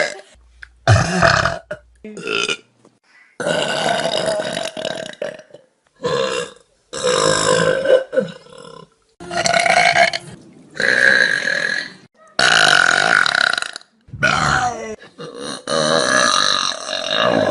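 A string of loud human burps from different people, about a dozen in a row. Each lasts from a fraction of a second to nearly two seconds, some long and drawn out with a buzzing pitch, and each starts and stops abruptly with a short silence between.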